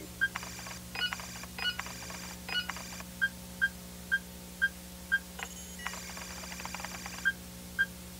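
Cartoon computer-screen sound effects: a short electronic blip repeating about twice a second, with two spells of rapid, higher-pitched chirping and bleeping as data is read out, over a faint steady hum.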